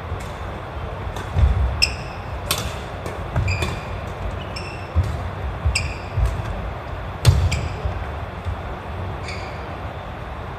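Badminton singles rally on a wooden gym floor: irregular sharp racket strikes on the shuttlecock, short squeaks of court shoes and thuds of footwork, over a steady hum.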